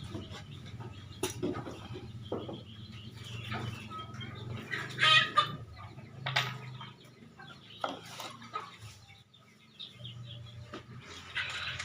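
A chicken clucking, with one short call about five seconds in, among scattered sharp knocks and taps.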